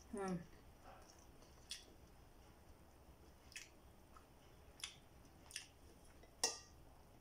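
Close-mic'd eating sounds of a person chewing rice and fried fish: a short falling 'mm' just after the start, then about five sharp wet mouth clicks and smacks, the loudest near the end.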